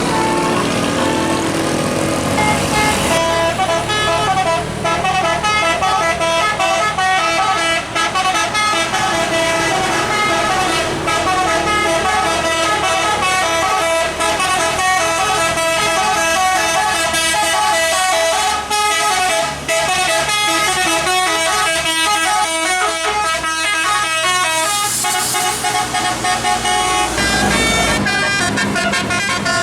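Telolet musical air horn on a bus playing a fast, many-note tune over the bus's running engine. The melody starts a few seconds in and stops shortly before the end, followed by a brief hiss.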